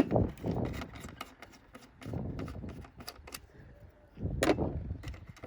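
Handling noise from working on a TV's internal boards and metal shielding: a sharp click at the start, then rustling and small clicks of plastic and metal parts, with a louder knock about four and a half seconds in.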